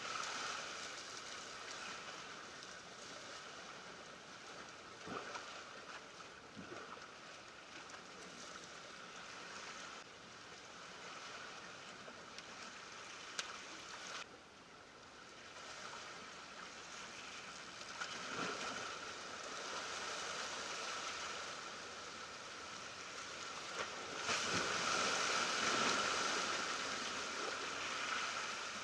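Ocean surf washing and breaking over shoreline rocks, a steady rushing that swells louder in surges, most strongly near the end, with a few faint clicks.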